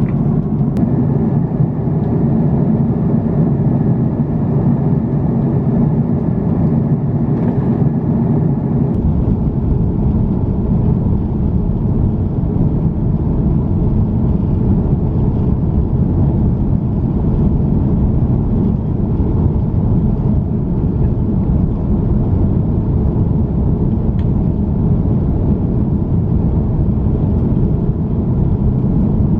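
Steady, loud rushing noise and deep rumble of an Airbus A330-300 airliner; the low rumble grows stronger about nine seconds in.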